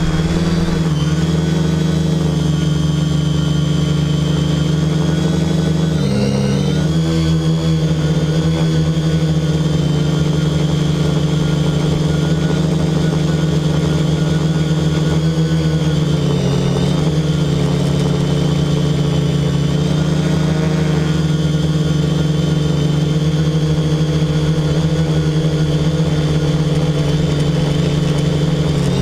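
An X525 quadcopter's four brushless outrunner motors spinning 10x4.5 slow-fly props, giving a steady multi-tone drone in flight. The pitch shifts briefly a few times as the throttle changes.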